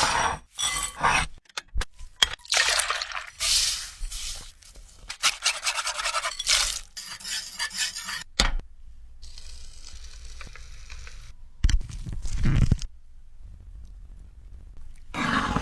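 Kitchen utensils clinking and scraping against dishes, in irregular bursts with quieter pauses.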